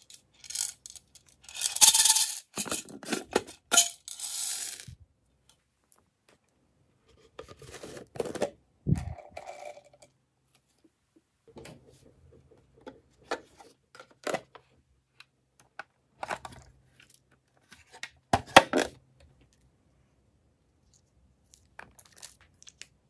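Small hard toppings poured from plastic bottles into a glass dish of slime, rattling and clinking as they fall, in several separate pours. The longest and loudest pour comes about two to five seconds in, with shorter rattles and taps later.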